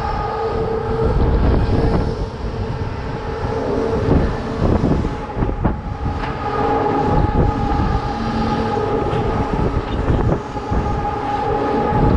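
Sound Machine fairground thrill ride running, heard from a camera on an empty gondola: a steady whine from the ride's drive over a heavy low rumble, with gusts of wind noise on the microphone as the gondola spins and flips. The whine fades briefly about halfway through, then returns.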